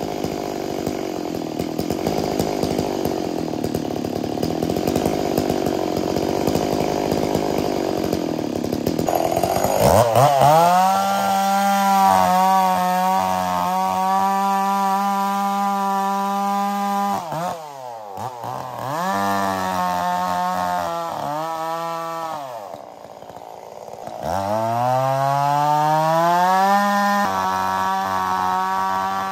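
Stihl 044 two-stroke chainsaw working hard in the cut with a rough, noisy sound. About ten seconds in it revs up to a steady high pitch. The revs drop briefly twice and climb back up.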